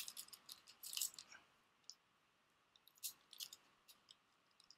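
Shiny trading-card booster pack wrappers crinkling faintly as they are handled, in two short clusters of crackles with a pause between.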